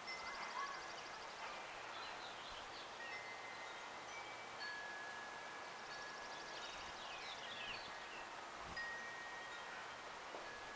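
Wind chimes ringing, several long metallic tones at different pitches overlapping one another, while a songbird sings twice, a high rapid trill followed by a few quick chirps.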